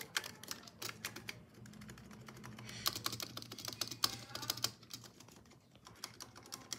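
Fast typing on a Razer Huntsman Mini keyboard: a dense run of clicky keystrokes on its optical key switches, with a brief lull near the end.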